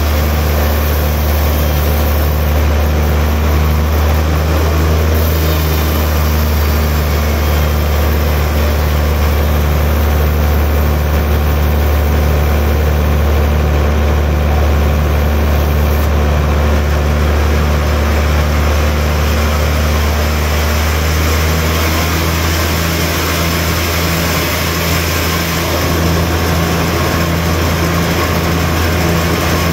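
Large sawmill band saw running steadily as its blade rips lengthwise through a big hardwood log: a deep, constant motor hum with a faint regular pulse under a broad rasping cutting noise.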